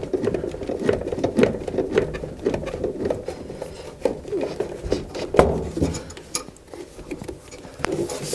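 Hands working on a gas furnace's parts: irregular clicks, taps and rubbing, with a louder knock a little past halfway.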